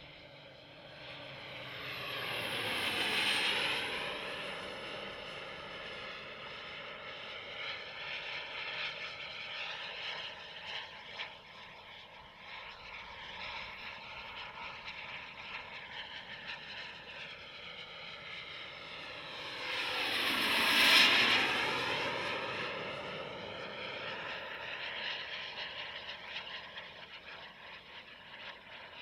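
Radio-controlled ViperJet model's small gas turbine whining steadily in flight. It swells twice as the jet makes two fast low passes, once about three seconds in and loudest about twenty-one seconds in, and each time the pitch drops as it goes by.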